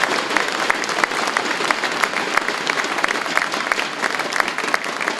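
Audience applauding, many hands clapping at once, the clapping easing off slightly toward the end.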